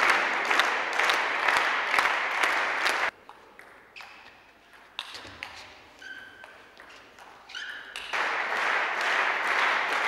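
Table tennis spectators applauding, the clapping falling into a steady beat of about two claps a second. It breaks off abruptly about three seconds in, leaving a few seconds of much quieter hall sound with small knocks, and the applause returns about eight seconds in.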